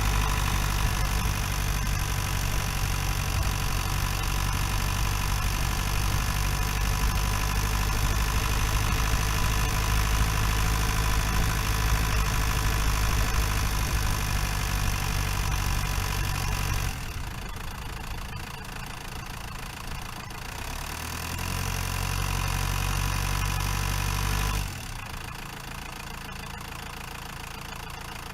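Renault Master 2.8 dTi van's four-cylinder turbodiesel engine running with a steady, heavy drone. About 17 seconds in it drops sharply in level. It swells again briefly, then falls off suddenly to quieter steady running about 25 seconds in.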